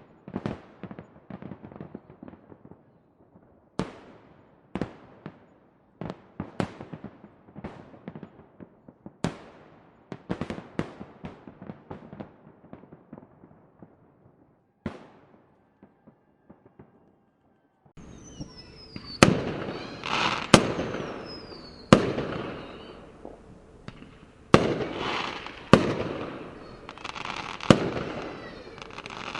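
Fireworks going off: a series of sharp bangs, each trailing off in crackle, thinning out and stopping about fifteen seconds in. After a short lull a louder, denser burst of bangs and crackling begins, with a few short falling whistles.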